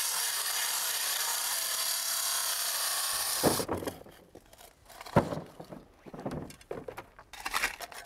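Wet saw with a diamond blade cutting into asphalt: a steady grinding whine with a wavering pitch that cuts off about three and a half seconds in. Then come shovels scraping and chopping at the loosened asphalt edge of the hole, in irregular strokes.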